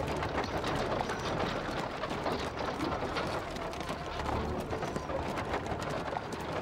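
Horse hooves clip-clopping, with a horse-drawn carriage rolling along.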